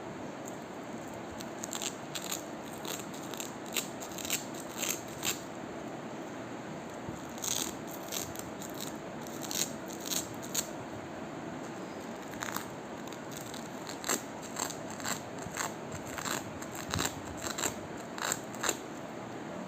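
Velcro being handled and pressed, giving irregular crunchy crackles and clicks, some in quick clusters with short pauses between, over a steady background hiss.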